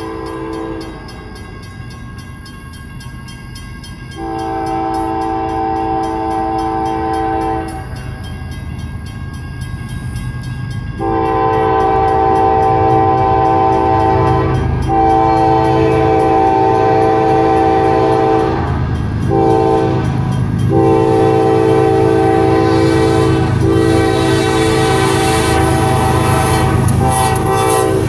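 A CSX GE ES40DC diesel-electric locomotive sounds its multi-note air horn in a series of long blasts with short breaks: a brief blast at the start, a long one from about 4 to 7 seconds, then near-continuous long blasts from about 11 seconds on, broken by brief gaps. Underneath is the low, steady running of its GEVO-12 V12 diesel engine at full throttle in notch 8. The whole sound grows louder about 11 seconds in as the train comes closer.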